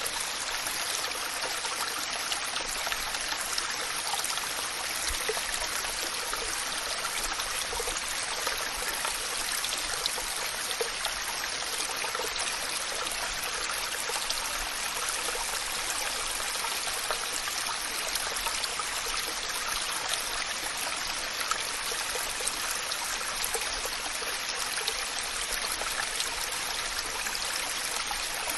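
Waterfall: a steady rush of falling water, an even hiss that sits mostly in the upper range with little deep rumble, unchanging throughout.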